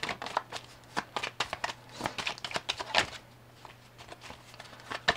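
A deck of oracle cards being shuffled by hand: a quick run of soft card slaps and flicks, easing off briefly a little past three seconds in before starting again.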